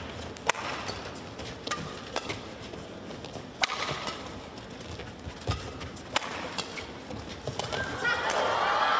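Badminton rally: sharp racket-on-shuttlecock hits at irregular intervals, roughly a second apart. About eight seconds in, the rally ends and the crowd breaks into cheering as the point is won.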